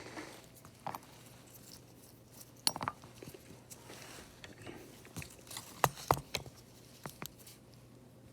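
Scattered light clicks, taps and faint scraping of small hand tools working on an iPad's frame, with a few sharper ticks about three seconds in and again near six seconds.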